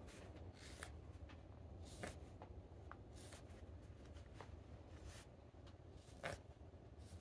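Faint, scattered scrapes and snicks of a straight carving knife levering thin shavings off a wooden goblet bowl's rim, a few separate cuts with the strongest about two seconds in and again about six seconds in.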